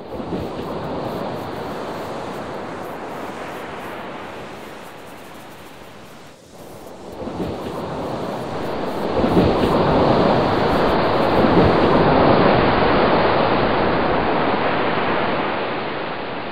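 Ocean surf rushing as a steady wash of noise, growing louder about halfway through.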